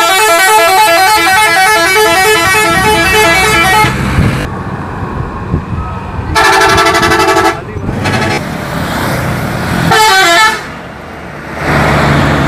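Multi-tone 'telolet' bus horn playing a fast warbling melody of alternating notes, stopping about four seconds in; a couple of seconds later it sounds a held chord for just over a second, then a short warble around ten seconds in. A bus engine runs underneath between the horn blasts.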